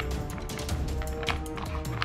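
Background music with held tones and a low pulsing beat, with scattered sharp clicks over it.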